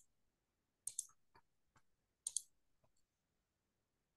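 Faint clicks of a computer mouse: two quick pairs of clicks, about a second in and again near halfway, with a few fainter ticks between, over near silence.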